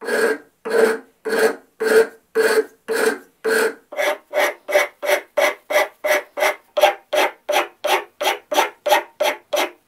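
Hand file stroking across the end grain of a dense bulletwood handle held in a vise, chamfering its end. Regular rasping strokes come about two a second, then quicker at about three a second from about four seconds in, each with a faint ringing tone.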